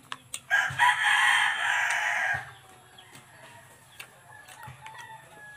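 A rooster crows once, a loud call lasting about two seconds, starting about half a second in. A few short clicks come just before it.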